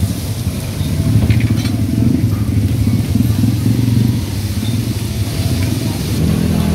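A steady low engine rumble, over a faint hiss of pork sisig sizzling on hot iron sizzling plates.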